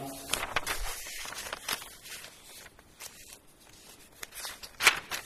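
Irregular rustling with scattered light clicks and knocks, the loudest just before the end: handling noise close to the microphone.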